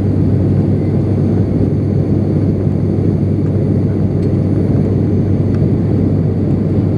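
Steady drone of an ATR 72-600's Pratt & Whitney PW127M turboprop engine and six-bladed propeller in cruise flight, heard inside the cabin beside the engine, with a strong, even low hum.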